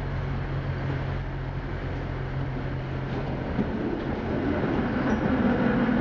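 Tatra T3 tram running, heard from inside the passenger compartment: a steady low hum and rumble that grows louder from about halfway through.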